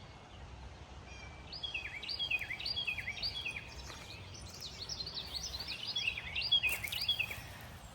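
Songbirds chirping: a rapid run of short, sharp notes from several birds calling over one another, starting about a second and a half in and thinning out near the end.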